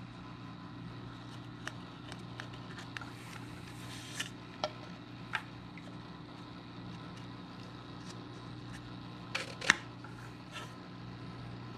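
Light plastic clicks and taps from handling a Coralife BioCube protein skimmer's body, its bottom cap and air hose, over a steady low hum. A sharper cluster of clicks comes a little before the end.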